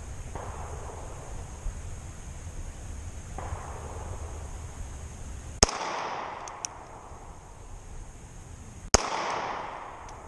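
Two 9mm pistol shots from a Springfield Armory XDS 3.3, fired slowly about three and a half seconds apart, each followed by a short echoing tail, with a few light clicks after the first shot.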